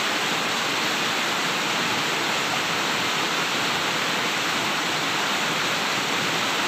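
River water rushing over stones, a steady, unchanging rush.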